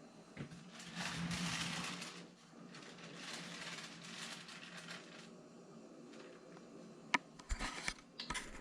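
Faint rustling handling noise, with a sharp click about seven seconds in and a few more clicks near the end.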